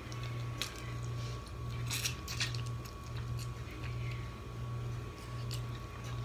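Eating steamed blue crab by hand: shell being picked apart and meat chewed, with scattered sharp clicks and cracks of shell. Underneath runs a low hum that pulses regularly, a bit more than once a second.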